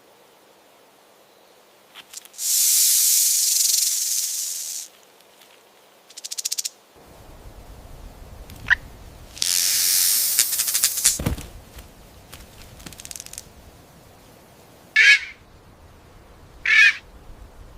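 A snake hissing loudly in two long blasts of about two seconds each, then two short, sharp bird calls near the end.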